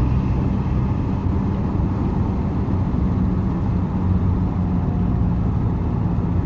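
Hyundai HR light truck's diesel engine and road noise heard from inside the cab while driving: a steady low drone.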